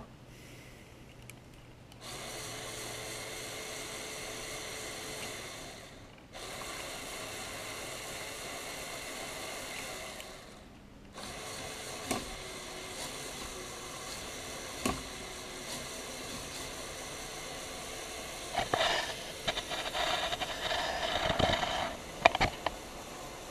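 Lego Technic Unimog's Power Functions electric motors and plastic gears whirring in three runs, with short stops about four and nine seconds in. Louder clattering and a few sharp knocks come near the end.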